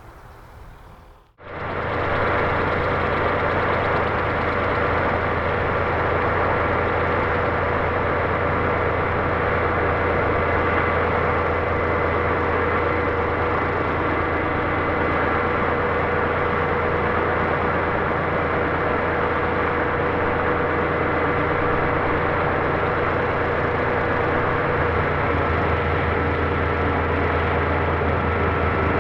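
Scale RC helicopter model of an Aérospatiale SA 315B Lama, its motor and rotor running at a steady speed with a constant whine over a low hum. The sound cuts in suddenly about a second in.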